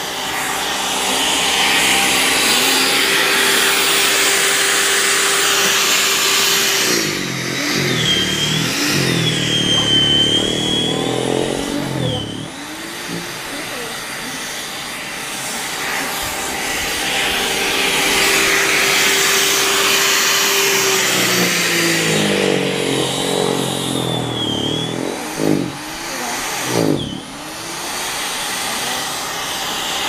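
Corded electric snow thrower running, its motor holding a steady whine and then twice dropping and wavering in pitch as it takes in snow, about a quarter and about three quarters of the way through, over a rushing hiss.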